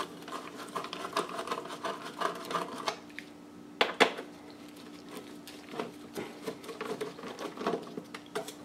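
Small bit screwdriver working screws out of a metal grill housing: a run of light, quick metallic clicks and scrapes, with two sharper clicks about four seconds in.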